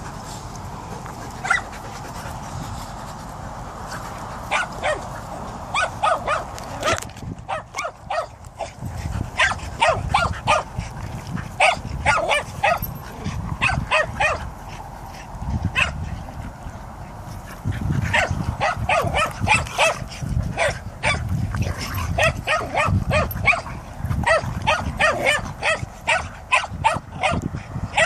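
Two dogs play-fighting, growling and barking at each other in a quick run of short calls, thickest after the first several seconds.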